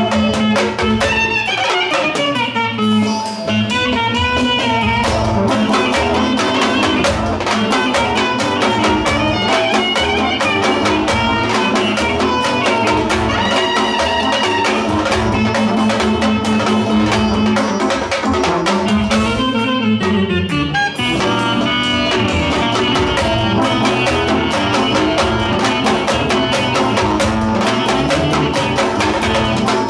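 Live Balkan-style band music: a clarinet plays a fast, ornamented melody over a steady drum beat and accompaniment.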